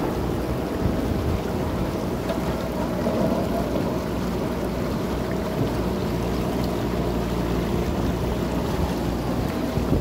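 Diesel engine of a JCB backhoe loader running steadily, under a constant rushing noise.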